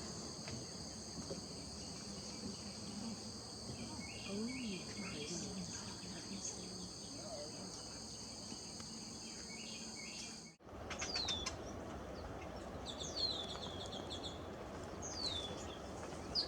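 Steady high-pitched insect drone with scattered small bird chirps. After an abrupt cut about ten seconds in, the drone stops and birds give short, sharp downward-sweeping calls several times, with a brief rapid trill.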